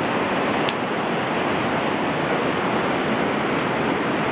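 Steady rushing of a whitewater river over rapids, an even roar without pauses, with a few faint ticks over it.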